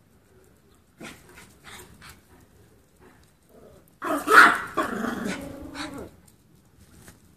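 Small terrier barking and growling in one loud burst of about two seconds, starting about four seconds in, after a few faint ticks.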